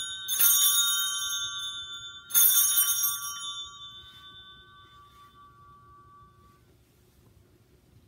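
Altar bells rung twice, about half a second in and again about two seconds later. Each ring is a cluster of bright tones that slowly fades out. The ringing marks the elevation of the chalice at the consecration of the Mass.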